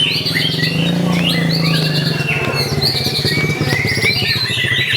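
White-rumped shama (murai batu) singing at full, contest-style intensity: a dense, fast string of varied chirps, trills and short whistled glides with no pauses, over a low steady hum.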